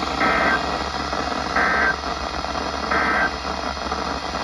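Three short bursts of Emergency Alert System SAME digital data, about a second and a half apart, over a steady hiss: the end-of-message code that closes a broadcast weather warning.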